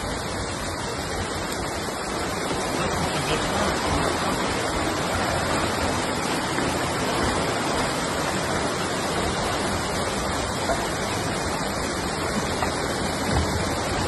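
Floodwater rushing and churning along a street during a storm, a steady, unbroken rush of water.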